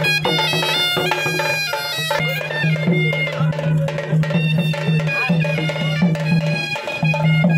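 Traditional Indian music: a wind instrument plays a melody in stepped, held notes over a steady low drone, with drum strokes.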